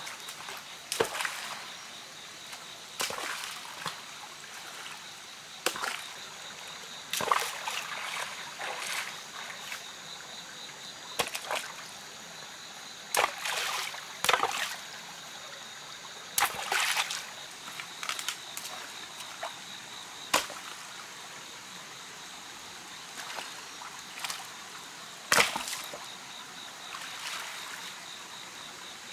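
Stones splashing and knocking as they are dropped and tossed into a shallow rocky stream, about a dozen separate splashes a second to several seconds apart, the loudest a little before the end. The stream's steady trickle runs underneath.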